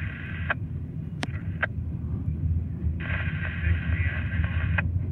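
Double-stack container train rolling past: a steady low rumble of wheels on rail with a few sharp clicks. A scanner radio hisses until about half a second in, then again for about two seconds near the end.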